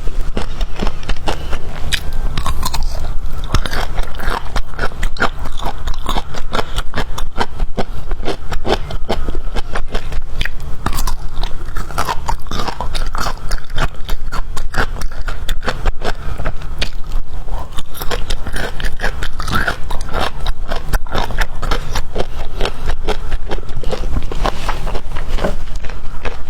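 Close-miked biting and chewing of bamboo shoots: a dense, unbroken run of crunches and wet mouth clicks.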